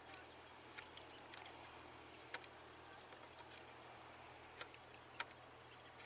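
Near silence: faint outdoor background with a steady low hum and a few brief, faint ticks.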